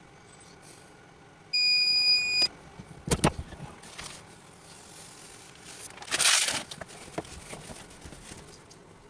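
A heat press timer beeping once, a steady tone about a second long, then a sharp clack about a second later and a brief hissing rustle a few seconds after that.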